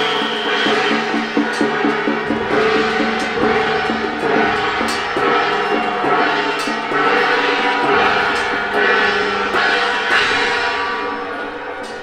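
Gongs, cymbals and drums of a temple procession percussion band playing together, loud and busy with many sharp strikes over ringing metal, fading out near the end.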